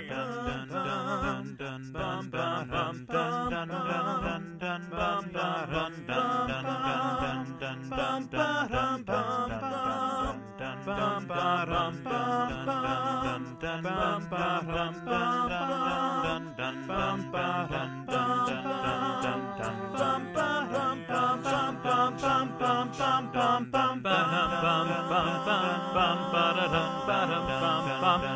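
A cappella arrangement: layered voices singing held chords over a quick clicking beat.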